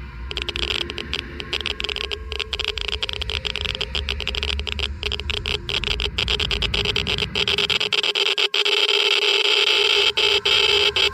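Geiger counter clicking rapidly and irregularly as it counts ionizing particles, over a steady hiss with a faint electronic whine.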